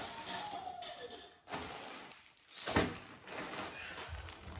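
Plastic packaging bag rustling and crinkling as it is handled, with a sharper crackle about three seconds in.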